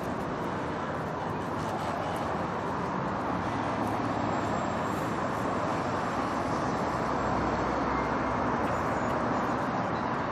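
Heavy city street traffic: a steady wash of car and bus engine and tyre noise with no single vehicle standing out, swelling slightly in the second half.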